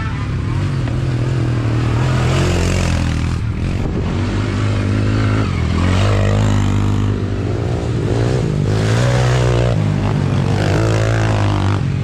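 Small off-road engines from mini ATVs and a close machine running under load, revving up and down repeatedly as the throttle is worked on a trail.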